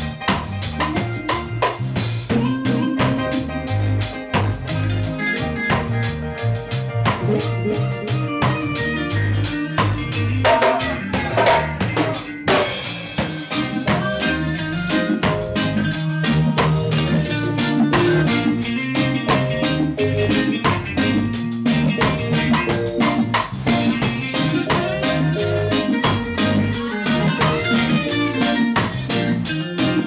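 A live band plays an instrumental groove: a drum kit with kick, snare and rimshots drives a steady beat under an electric bass line and keyboard chords. A cymbal crash comes partway through.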